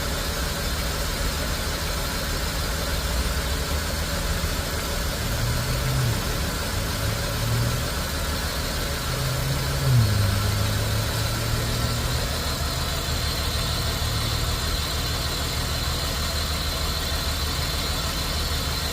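2002 AU Ford Falcon engine idling roughly, its pitch wavering and shifting through the middle, with a brief louder moment about ten seconds in. The owner suspects a sticky auto choke or a faulty coil pack.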